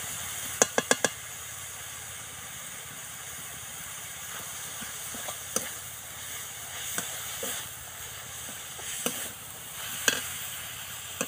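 Grated carrot and pea filling sizzling in a metal kadai as a metal spatula stirs it, with sharp clinks of the spatula against the pan: a quick run of four about half a second in, then single knocks every second or two.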